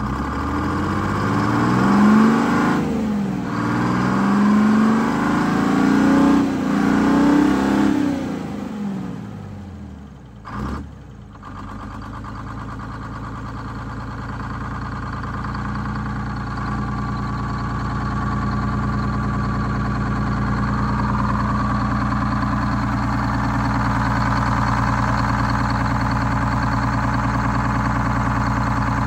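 Detroit Diesel 6-71 inline-six two-stroke diesel being revved up and down several times. It drops back about ten seconds in, then runs at a steady speed for the rest.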